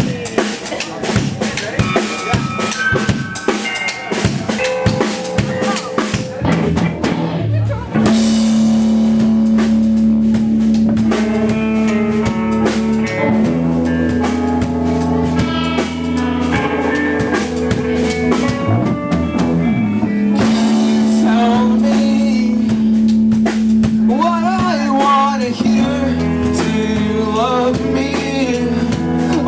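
Live rock band playing a song's instrumental intro. Drums lead alone at first, with a few scattered notes; about eight seconds in, the full band comes in with sustained bass and guitar chords, and the sound gets louder.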